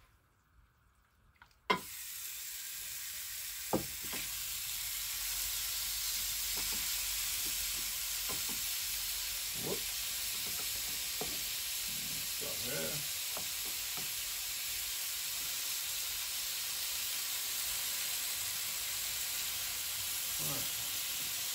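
Raw diced chicken sizzling steadily on the preheated non-stick plates of a Tefal Optigrill Elite contact grill. The sizzle starts abruptly about two seconds in as the first pieces go on, with scattered clicks of a utensil against the plates as more pieces are added.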